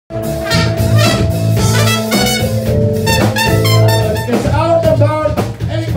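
Live band music, a trumpet holding long notes over a drum kit. From about four seconds in, the held notes give way to wavering, bending pitches.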